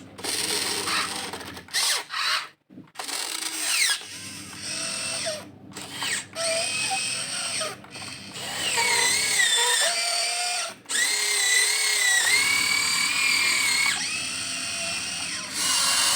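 Electric gear motors of a Huina 1592 RC excavator whining as the machine works, their pitch wavering and shifting with load. The whine stops short several times, between movements.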